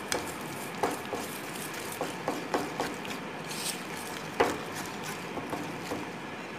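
Wire whisk stirring thick biscuit-and-milk batter in a stainless steel bowl: soft scraping with irregular clicks of the whisk against the metal, the loudest about four and a half seconds in.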